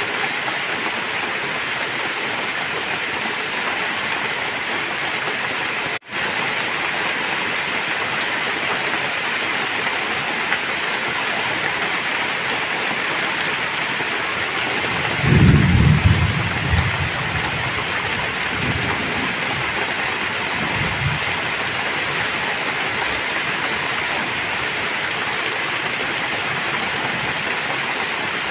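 Heavy rain falling steadily. About halfway through, a low rumble of thunder swells for a couple of seconds, followed by two fainter rumbles. The sound cuts out for an instant about six seconds in.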